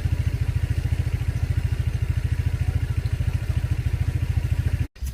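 A small engine running steadily with a rapid, even low beat, which cuts off abruptly near the end.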